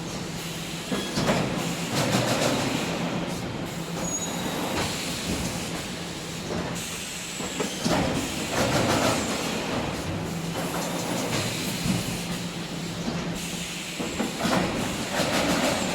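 Wire mesh welding machine running: a steady hum under irregular metallic clattering that surges every second or few.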